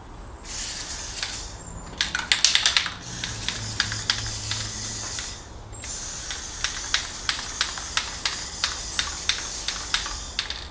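Aerosol spray-paint can fired through a clip-on trigger handle (Krylon Snap and Spray): two long bursts of hissing spray with a short break about halfway. Sharp clicks rattle about two seconds in, and evenly spaced clicks, roughly three a second, run through the second burst.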